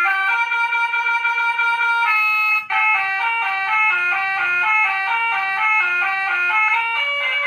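Electronic motorcycle horn module sounding through a small horn speaker, switching between its preset tones: a held tone that changes about two seconds in, a brief break, then a tune of quick stepping notes.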